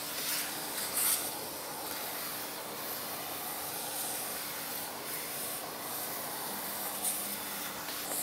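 Shop vacuum running, its hose nozzle sucking wood dust and chips off a freshly V-carved workpiece: a steady rushing hiss over a faint hum, with two brief louder rushes, about a second in and again near the end.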